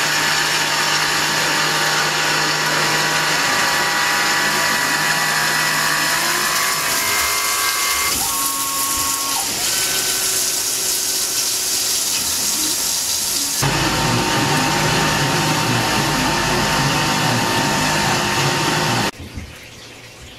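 Tormach CNC mill's spindle running as a roughing end mill cuts pockets in aluminium stock under high-flow flood coolant: a steady whine with several fixed tones over the hiss and splash of coolant. The sound changes abruptly about eight and about thirteen seconds in, and drops off sharply a second before the end.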